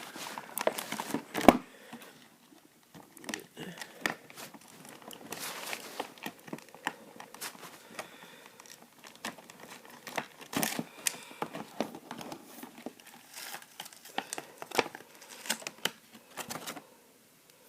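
Plastic toy packaging crinkling and rustling as a toy figure is worked free of its box, with irregular clicks and snaps of plastic clips; one sharp snap about one and a half seconds in.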